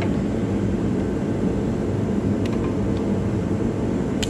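A steady low mechanical drone, with a few faint clicks of pliers on metal as they work at a small engine's carburetor fuel line.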